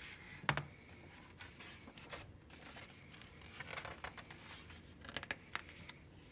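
Pages of a hardcover picture book being turned by hand: paper rustling in several short flurries, with a sharp tap about half a second in.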